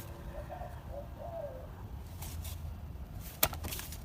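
A bird calling faintly in a few short, wavering notes, over a low steady background hum. A single sharp click comes about three and a half seconds in.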